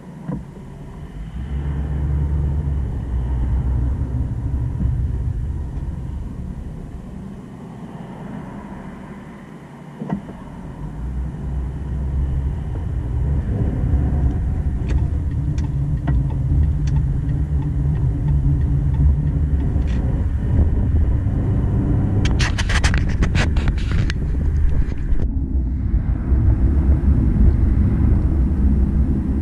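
A car driving, heard from inside the cabin: steady low road and engine rumble that dips about a third of the way in and builds again as the car picks up speed. A quick run of sharp clicks and rattles comes near the end.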